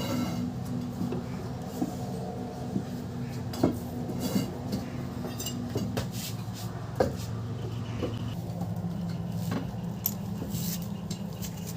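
Scattered light metallic clinks and taps of tools and engine parts over a steady low hum, as the timing chain and sprockets of a motorcycle engine are set.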